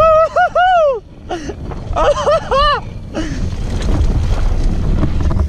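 Mountain bike rolling fast down a dusty gravel trail, with wind buffeting the microphone and tyre rumble throughout. Twice a loud high tone wavers in short rising-and-falling pulses: in the first second, and again about two seconds in.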